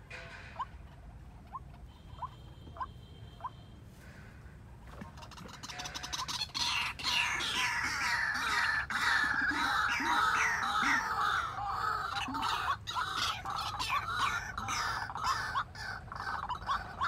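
White-breasted waterhens calling. At first there are single short notes repeated about every half second. From about five seconds in comes a loud, continuous run of rapidly repeated calls.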